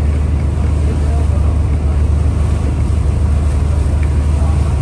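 Sightseeing boat's engine running with a steady low drone as the boat cruises.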